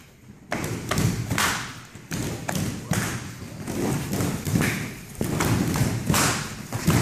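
Taekwondo sparring: a string of irregular dull thuds as kicks and punches land on padded chest protectors and feet stamp on the foam mats, a couple of hits a second.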